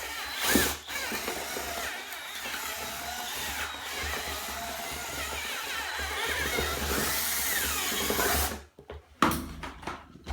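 Electric drill boring into a plastic tub to widen a hole, running steadily for about eight and a half seconds with the plastic squealing against the bit, then stopping, followed by one short burst near the end.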